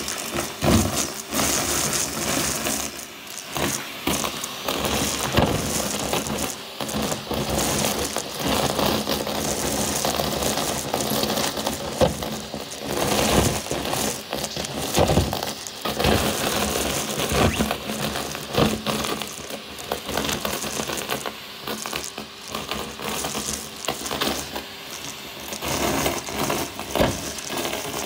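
Vacuum cleaner sucking confetti and shredded paper off a carpet through a bare metal wand: a steady running motor with irregular crackling and clicking as the pieces are pulled up the tube.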